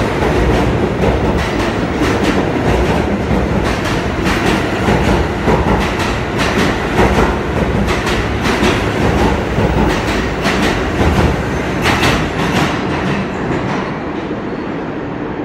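A New York City Subway R46 train runs past and away into the tunnel, with a steady rumble and repeated clacks of its wheels. The noise fades over the last couple of seconds as the last car leaves.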